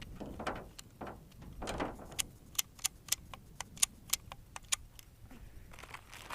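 Handling rustle, then a run of about ten light, sharp metallic clicks over two and a half seconds, irregularly spaced; no shot is fired.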